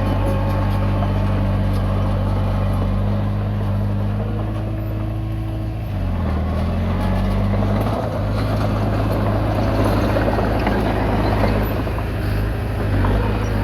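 Komatsu D20P bulldozer's diesel engine running steadily under work, its pitch dipping briefly about six seconds in and then recovering, with rougher mechanical noise in the second half.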